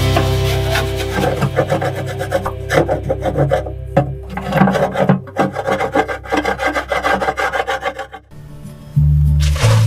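Repeated scraping and rubbing strokes of a hand tool being worked against the inside of a steel boat hull, in a quick uneven rhythm that stops about eight seconds in. Guitar background music plays underneath.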